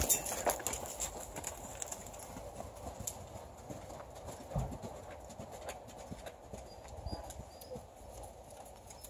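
Hoofbeats of a saddled horse on sand footing as it trots and canters in circles, an uneven patter of soft strikes with a couple of heavier thuds about halfway through and a little later.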